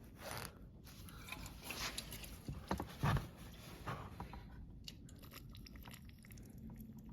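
Faint, scattered handling noises: small clicks, taps and brief rustles of parts and a spray can being handled.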